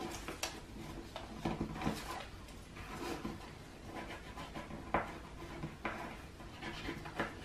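Paper being creased by hand on a tabletop: soft, scattered rustles and rubs from the fold, with a few sharper crinkles.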